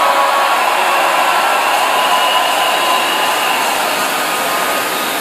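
Large congregation applauding and cheering, a dense, steady crowd noise that eases slightly toward the end.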